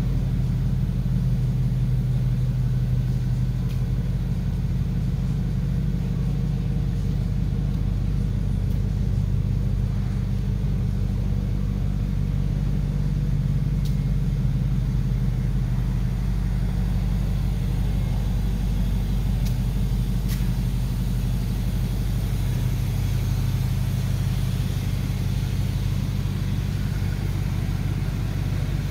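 Porsche Panamera Turbo's twin-turbo V8 idling steadily, a deep even rumble through its exhaust with no revving.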